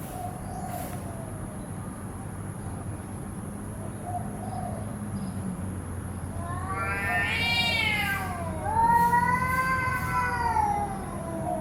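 Domestic cat meowing: a few short faint mews, then two long drawn-out meows, the first about six seconds in rising then falling in pitch, the second just after and louder, over a steady low hum.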